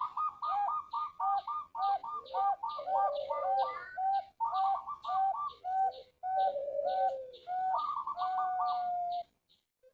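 Male zebra doves (perkutut) cooing: a rapid run of short, bouncing coo notes, with faint high chirps alongside. The cooing breaks off about nine seconds in and starts again near the end.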